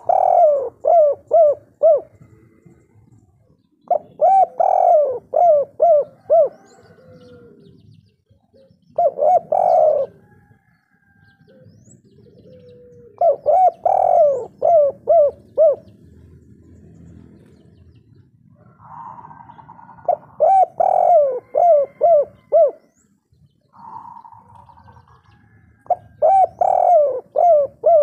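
Spotted dove cooing, the local 'kuk 3' song type: six phrases about four to five seconds apart, each a rising coo followed by a quick run of short coo notes.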